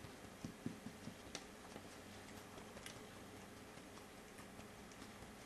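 Faint scattered clicks and soft smacks of a young puppy suckling on a feeding bottle, over quiet room tone, with a few soft low thumps in the first second.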